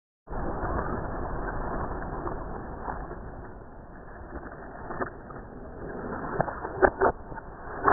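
Kick scooter wheels rolling over pavement, a steady rough rumble with scattered clicks and a few sharp clacks, the loudest a pair about a second before the end and another at the very end.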